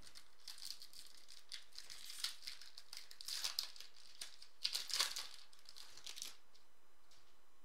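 Foil trading-card pack wrapper crinkling as it is torn open and peeled off the cards, in a run of crackly bursts that are loudest about halfway through and again about two-thirds through, stopping about six seconds in.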